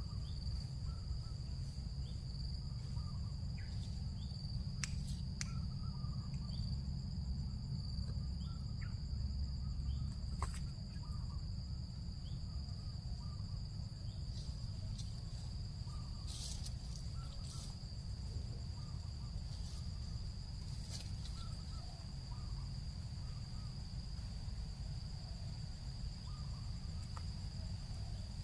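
A steady high-pitched insect drone over a low rumble, with a few faint short chirps and clicks scattered through it.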